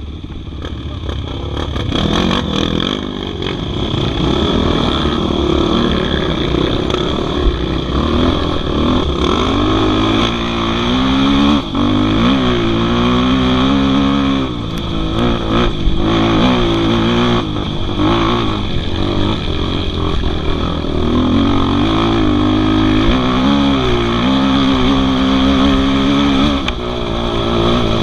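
Dirt bike engine pulling away and running along a muddy trail. Its pitch climbs and drops again and again with throttle and gear changes.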